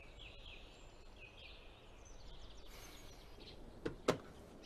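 Faint background ambience with small birds chirping, then two sharp knocks about a quarter second apart near the end.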